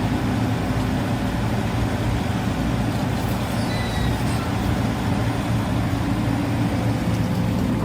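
Diesel engine of a Caterpillar 395 excavator running steadily, a deep constant drone.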